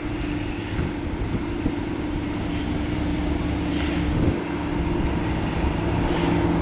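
Railway locomotive running with a steady engine hum that grows slowly louder, broken by several short hisses.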